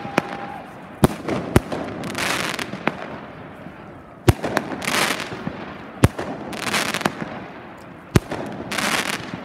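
Fireworks display: a sharp bang every second or two, with four bursts of crackling from exploding crackle stars, each about half a second long.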